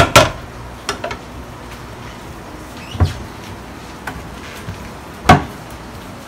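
A few separate knocks and clunks of cookware on a gas stovetop: a spatula against a pot of ground beef and a frying pan being handled on the burners. The loudest clunk comes about five seconds in.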